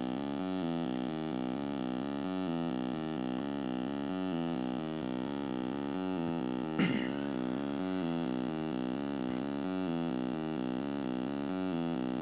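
Arduino-driven 8-bit wavetable synth playing a sawtooth wave through a small portable speaker, its 8-step sequencer cycling a repeating pattern of notes. A brief short noise cuts in about seven seconds in.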